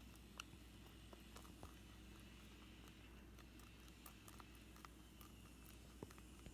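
Rabbit chewing popcorn: faint, irregular crunching clicks over a low steady hum.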